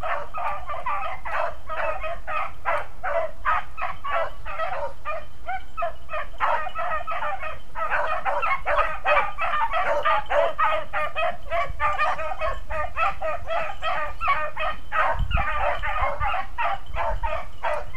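Pack of beagles baying in full cry, many voices overlapping in a steady stream of short barks and bawls, the sound of hounds running a track.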